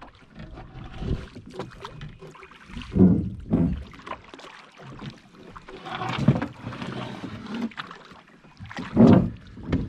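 Drift boat being rowed: oar strokes pulling through the water, in uneven surges that are loudest about three seconds in and near the end.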